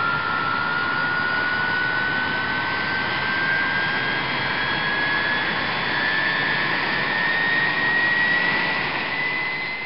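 Boeing 777 turbofan engine starting: a steady rush of air with a whine that climbs slowly in pitch as the engine spools up.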